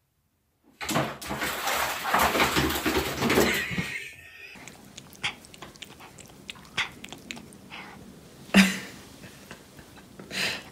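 A loud rough noise for about three and a half seconds, then a cat licking and chewing a plastic bag: a run of small wet mouth clicks and plastic crinkles, with a few sharper clicks and rustles.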